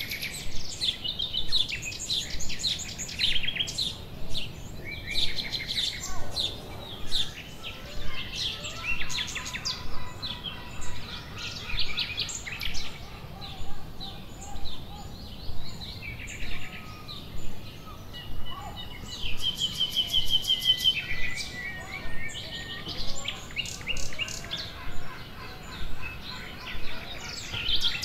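Several songbirds singing and chirping in short, overlapping phrases, with high trills.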